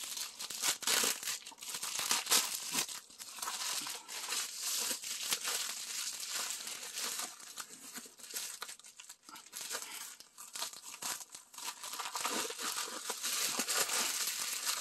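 A padded bubble mailer being torn open by hand and its wrapping crinkled: an unbroken run of irregular crackling and tearing rustles.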